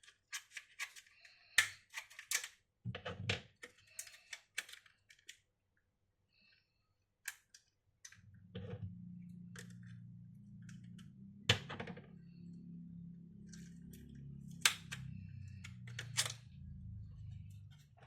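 Scattered sharp plastic clicks and taps from hands working on a laptop's casing and parts during a hardware upgrade, bunched in the first few seconds and again in a few single louder clicks later on. From about eight seconds in, a low steady hum joins underneath.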